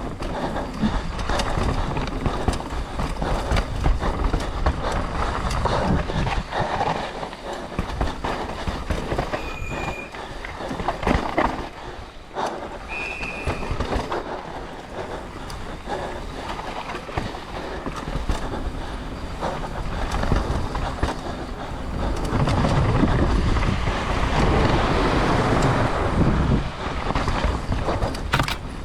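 Mountain bike descending a rough trail at race speed: continuous tyre noise on dirt and rock, with the bike rattling and clattering over the terrain and two brief high squeals about ten and thirteen seconds in. It gets louder and rougher for several seconds near the end.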